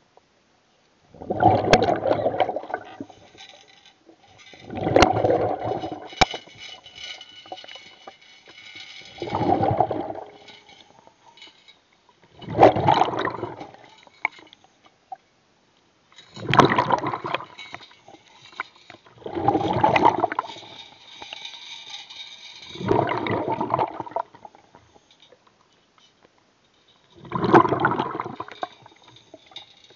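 Water gurgling and sloshing, heard underwater, in about eight separate bursts of roughly a second each, every three to four seconds.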